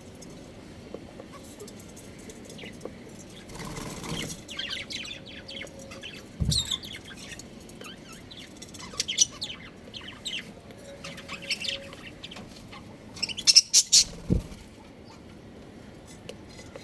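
Budgerigars chirping in short, high, scattered calls, with a brief flutter of wings about four seconds in and a loud cluster of chirps near the end. Two low thumps break in, one in the middle and one near the end.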